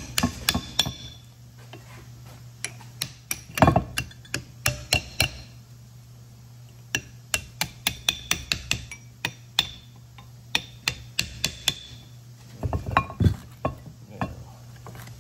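Repeated sharp metallic taps in short runs, a few a second: a hammer tapping a brass drift to drive the rusted pad retaining pin out of a 1968 Camaro's original four-piston disc brake caliper, the pin starting to move.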